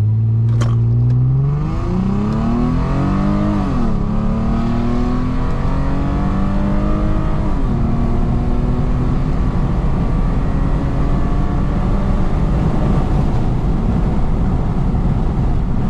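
Lexus IS250's ECU-tuned 2.5-litre V6 accelerating hard, its revs climbing and then falling at two automatic gear upshifts, about 4 and 7.5 seconds in, before settling to a steady cruise over road rumble. A sharp click sounds near the start.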